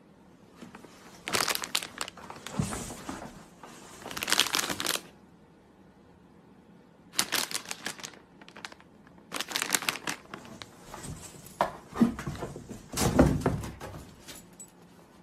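Cardboard box crinkling and scraping as a husky moves around inside it, in several short bouts with pauses between.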